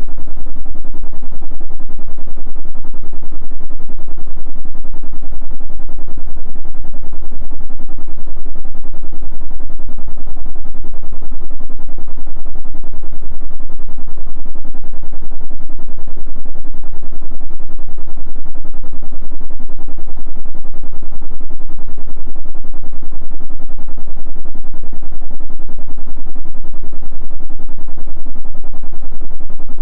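Electric fan running steadily: a loud, even whir weighted to the low end, with a fast regular pulse from the blades.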